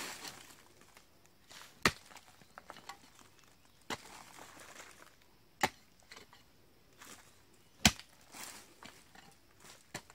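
A hand hoe's metal blade chopping into packed earth: four sharp blows about two seconds apart.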